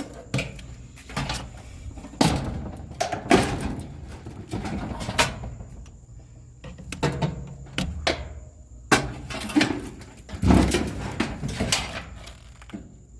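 Irregular clanks, knocks and rattles of a front-load dryer's metal and plastic parts being pulled and handled during disassembly, with some scraping between the hits.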